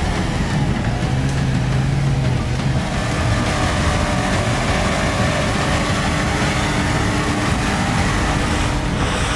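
Toyota FJ Cruiser on portal axles driving off-road through mud and grass, its engine running steadily under load.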